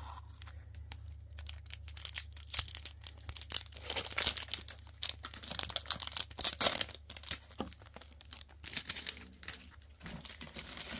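Foil wrapper of a Topps Chrome trading-card pack being torn open and crinkled by hand: irregular sharp crackles, loudest around four and six and a half seconds in.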